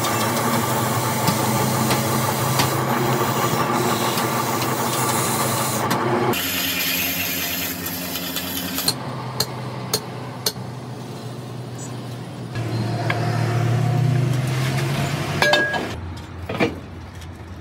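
An engine or motor running steadily, its tone shifting at a few points, with a few sharp metallic clicks in the middle and short clinks near the end.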